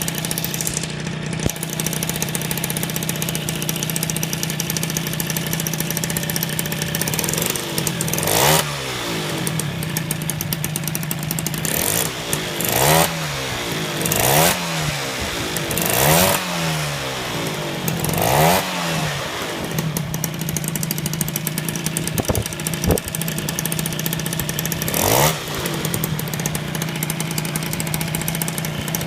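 Simson moped's two-stroke single-cylinder engine breathing through a LeoVince handmade exhaust, idling steadily and blipped six times with short throttle revs that rise and fall, most of them bunched in the middle stretch.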